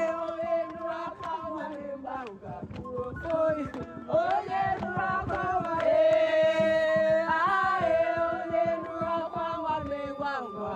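Voices singing a chant-like song together, with long held, wavering notes.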